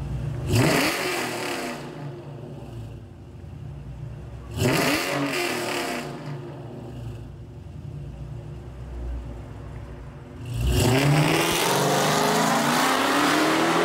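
Dodge Charger engine idling, blipped sharply twice about four seconds apart, then revving up hard as the car accelerates away, the sound echoing off the concrete of a parking garage.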